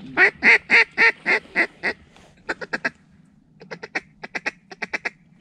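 Mallard duck call blown by a hunter: a run of about seven loud quacks that taper off, then short bursts of quick clucking chatter, calling a single passing mallard in to the decoys.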